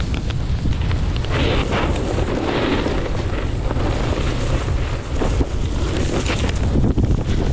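Wind buffeting an action camera's microphone in a deep, steady rumble, over the hiss of a snowboard sliding through fresh powder snow. The hiss swells and fades a few times as the board turns.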